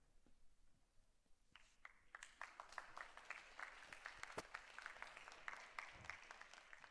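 Faint audience applause: scattered claps begin about a second and a half in and build into steady clapping.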